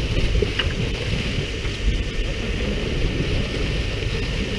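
Steady rumble of a fishing boat's engine, with wind buffeting the microphone and the even hiss of the boat's water sprayers spattering onto the sea.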